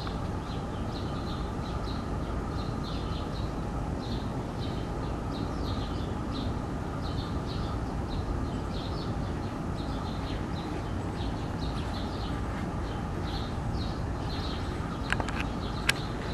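Small birds chirping over and over, short high calls a few times a second, over a steady low background rumble. Two or three sharp clicks come near the end.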